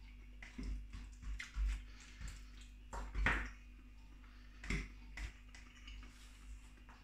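Quiet eating sounds: a few short clicks and scrapes as food is picked from a plastic ready-meal tray, the loudest about three seconds in.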